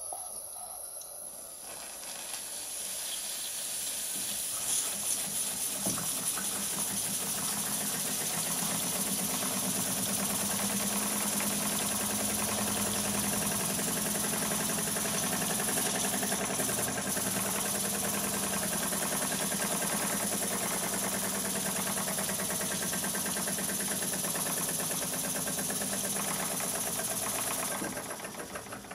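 Small lathe-built single-cylinder steam engine running on steam from a homemade boiler: a steady steam hiss with fast exhaust chuffing. It starts abruptly as the steam valve is opened, builds over the first few seconds, and fades away near the end.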